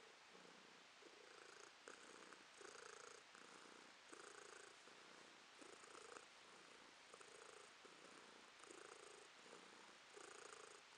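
A tabby cat purring close up, faint and steady, swelling and fading about once a second.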